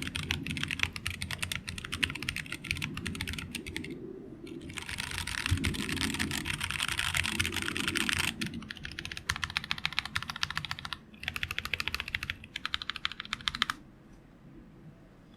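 Fast typing on a plateless BM60 hotswap mechanical keyboard fitted with stock, unlubed Zealios V2 tactile switches with 67 g springs: a dense run of key clacks with a short break about four seconds in. The typing stops about two seconds before the end.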